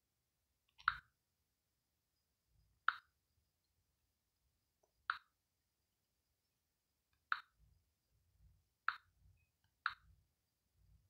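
Six short, sharp clicks, one to two and a half seconds apart, with faint low bumps between them.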